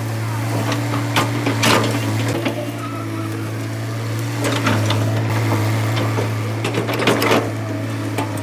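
Tata Hitachi EX200 excavator's diesel engine running steadily with a constant low drone, with a few sharp knocks and clacks over it at irregular intervals.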